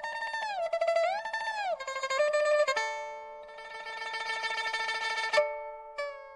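Guzheng (Chinese zither) playing a melodic phrase: the first notes are pressed up in pitch and let back down, then a quick run of plucked notes leads into ringing notes that are cut off suddenly, with a single pluck near the end.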